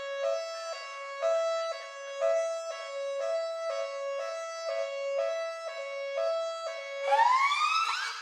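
Police two-tone hi-lo siren alternating between two close pitches about once a second. About seven seconds in it switches to a rising wail.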